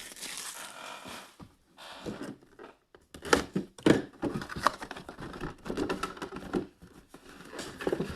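Boxes of mini football helmets being ripped open by hand: packaging crinkling and tearing, then a run of irregular taps and knocks as the boxes and contents are handled.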